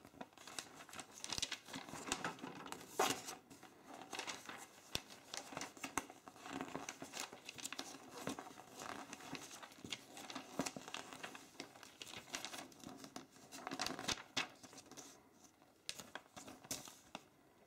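Paper pages of a LEGO Duplo instruction booklet rustling and crinkling as they are turned and handled, with small taps and flaps of the sheets. Faint throughout, thinning out near the end.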